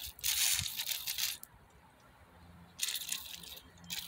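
Aerosol can of brake cleaner spraying onto a removed fuel injector in two hissing bursts, the first about a second long just after the start and a shorter one about three seconds in.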